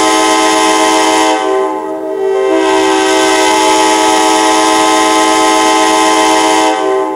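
Recorded diesel locomotive air horn sounding long blasts, one running into the next, held as a steady chord of several notes. This is the default grade-crossing horn sound from an MTH Proto-Sound locomotive's sound file, played back through a computer.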